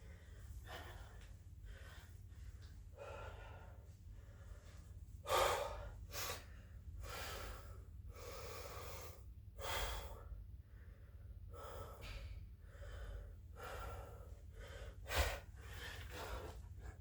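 A man breathing hard in quick gasps while doing burpees, a puff of breath roughly once a second, with a few louder, sharper ones about five, ten and fifteen seconds in.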